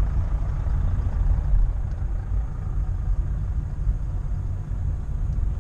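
Inside a Škoda car's cabin while driving slowly: a steady low rumble of engine and road noise.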